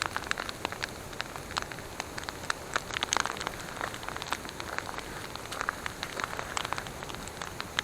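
Wood campfire crackling: irregular sharp snaps and pops over a steady soft hiss.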